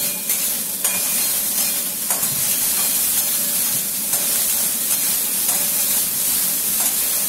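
Chopped vegetables sizzling in hot oil in a kadhai as they are sautéed, while a flat metal spatula stirs and scrapes them around the pan. A few sharp clinks of the spatula against the pan sound through the steady sizzle.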